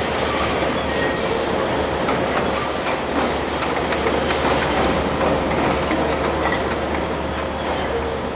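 A New York City 7 line subway train runs on the elevated steel structure, giving a steady rail rumble. High-pitched wheel squeals come through in the first three seconds or so, and a fainter one sounds near the end.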